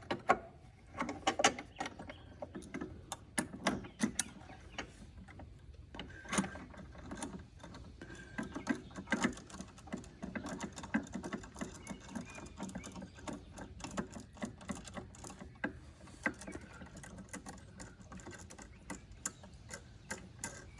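Irregular metallic clicks, taps and clinks of hand tools and hardware against the trike's front-end parts as a steering-damper spring and bracket are fitted.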